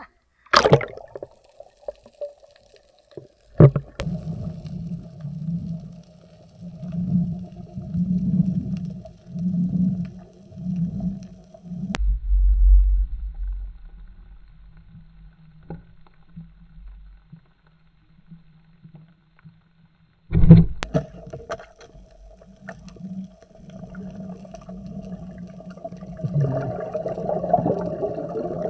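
Muffled underwater sound of a night spearfishing dive: a low hum with a slow pulsing about once a second for several seconds, a few sharp knocks, and one loud sudden knock about twenty seconds in.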